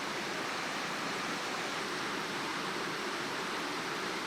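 Steady rushing of a river: an even wash of water noise, with no separate events standing out.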